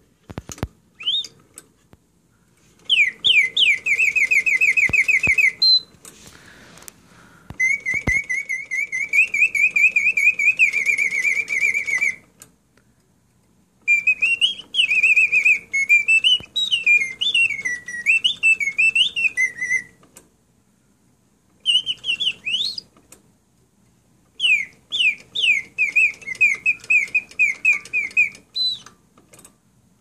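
Mechanical singing-bird cage: the automaton canary whistles in five phrases of fast chirping trills and warbles, the notes rising and falling, with short pauses between phrases. A few clicks and a short chirp come before the first phrase, and a faint low hum runs under the song.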